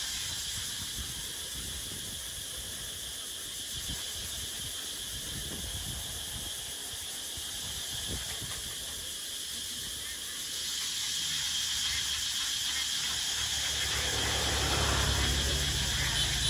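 Outdoor ambience: a steady high-pitched hiss that grows louder about ten seconds in, with a low hum building near the end.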